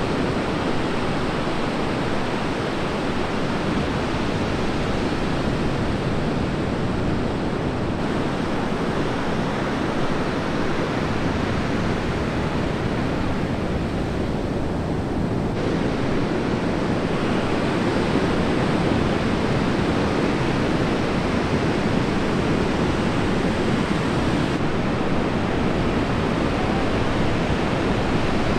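Steady rushing noise of heavy breaking ocean surf, with no pitched sounds in it. Its tone shifts abruptly three times.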